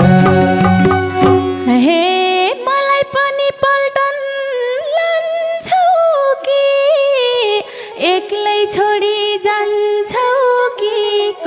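Instrumental break of a Nepali dohori folk band. For the first two seconds the full band plays with madal and dholak drums. Then the drums drop out and a solo sarangi plays a bending, gliding melody, with a few light percussive taps.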